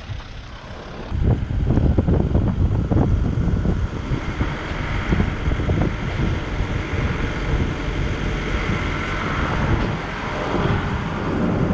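Wind buffeting the microphone in gusts, a heavy uneven rumble that jumps up about a second in.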